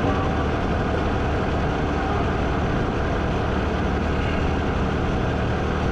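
Motorcycle engine running steadily while being ridden along the road, at an even level with a low steady hum.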